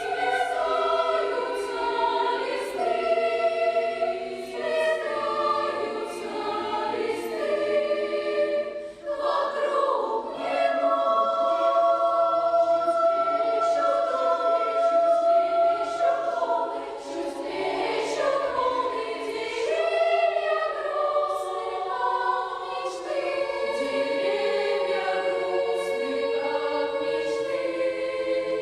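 A choir singing a song, with long held notes.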